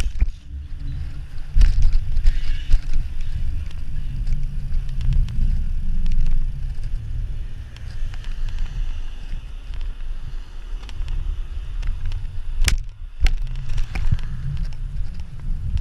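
Wind buffeting the microphone of a camera riding on a bicycle rolling down a paved road, a loud uneven low rumble with tyre noise, broken by a few sharp knocks, the loudest about three-quarters of the way through.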